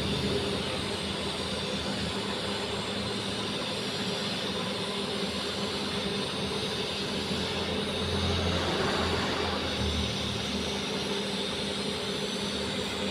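TIG (argon) welding arc burning steadily: an even hiss over a low electrical hum, the low end swelling briefly about eight seconds in.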